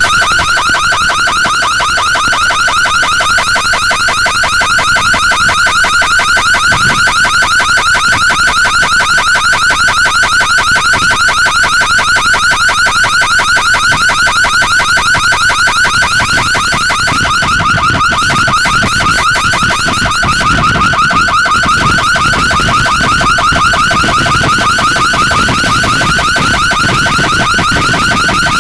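Vehicle anti-theft car alarm sounding continuously, a loud, fast-warbling electronic tone with no pause, set off by a collision.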